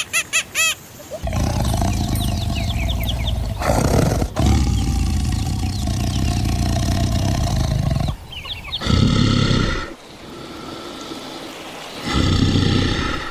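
A large animal's deep roaring call, held for about seven seconds, followed by two shorter calls.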